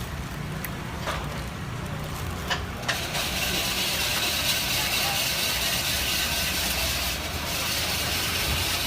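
Ice shaving machine grinding a block of ice into shaved ice, a steady hiss that starts about three seconds in, after a few light clicks, over a low background hum.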